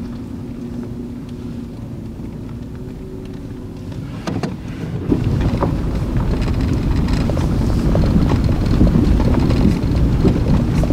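Toyota 4Runner driving down a rough dirt trail. A steady engine hum comes first; then, about four seconds in, it gives way to a louder rumble of tyres over rocks and gravel, with many small knocks and crunches.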